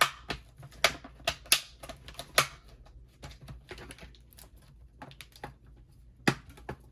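Irregular clicks and taps of plastic laptop parts being handled and snapped back together during reassembly, with a few louder snaps in the first couple of seconds and another near the end.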